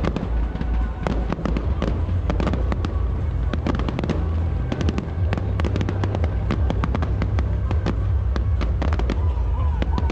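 Aerial fireworks display: a dense, irregular run of sharp pops and bangs from bursting shells, many overlapping, over a steady low rumble.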